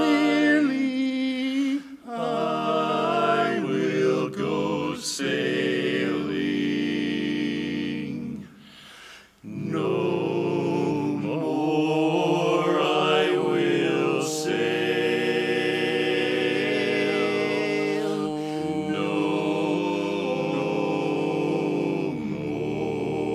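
Male barbershop quartet singing a cappella in four-part close harmony, holding and shifting chords. The voices break off for about a second roughly nine seconds in, then come back in.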